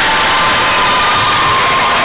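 Spectators at a basketball game cheering and shouting in a loud, steady din, with a few long, steady high notes held over it.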